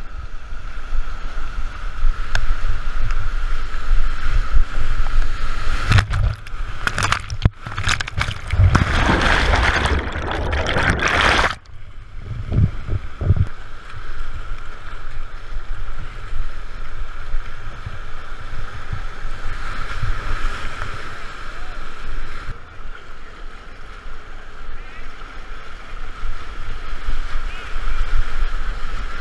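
Whitewater rushing and splashing around a kayak, heard through a helmet-mounted camera with rumble on the microphone. From about six seconds in, some five seconds of loud crashing water as the kayak punches through a wave, then steady rushing again.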